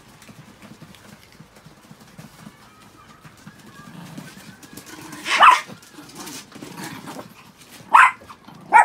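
Long-haired Chihuahuas barking: a longer yappy bark about halfway through, then two sharp yaps near the end, over quieter low scuffling.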